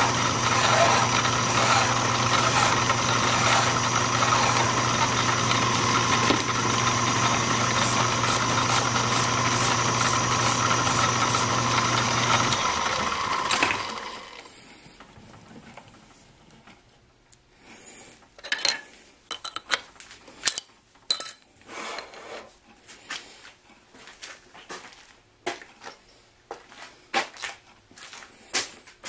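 Small metal lathe running steadily with a flat file held to the freshly cut threads of the spinning steel rod to deburr them; about 13 seconds in the lathe is switched off and runs down. After that only scattered light clicks and taps.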